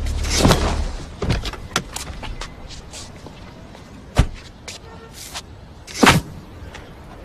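A series of separate sharp knocks and thuds, the two loudest about four and six seconds in, with quieter ones in the first two seconds.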